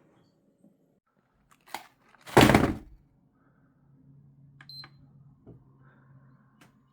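Microwave oven door shut with a loud thunk. A couple of seconds later come a short keypad beep and a few button clicks, with a low hum setting in.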